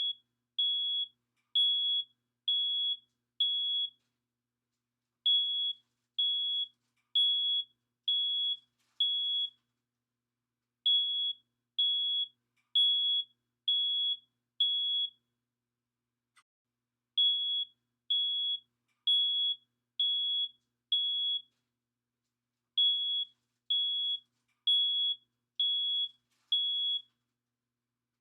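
Smoke alarm sounding: a single high-pitched beep repeated in sets of five, about one beep a second, with a short pause between sets.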